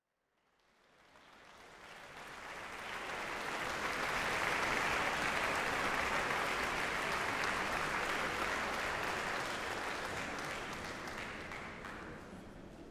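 Audience applauding, building up over the first few seconds and dying away near the end.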